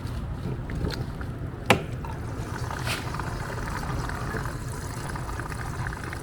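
Diesel fuel being poured into the fuel tank of a Bobcat R2 series mini excavator, a steady trickling fill, with one sharp click just under two seconds in.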